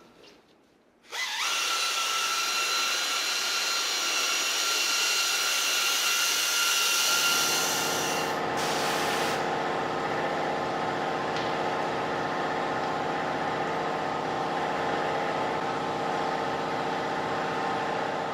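Electric polisher with a rubbing-compound pad running steadily on a plastic headlamp lens, starting about a second in. Its tone shifts lower about seven seconds in.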